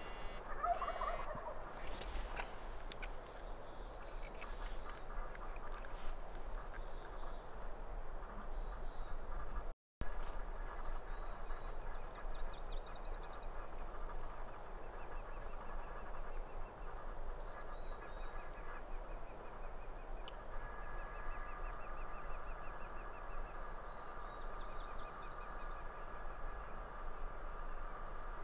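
A Merriam's wild turkey gobbles once in the first second or so: a rattling call that falls in pitch. After that, a songbird sings a short trilled phrase again and again, every few seconds.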